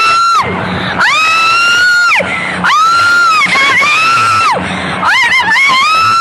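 A woman screaming over and over: long, very high-pitched screams that rise, hold for a second or more and fall away, with a low hum in the short gaps between them.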